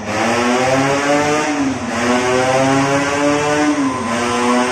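Tuned two-stroke Vespa racing engine run at full throttle on a roller dyno, its pitch climbing steadily in each gear and dipping twice, about two seconds apart, as the rider shifts up.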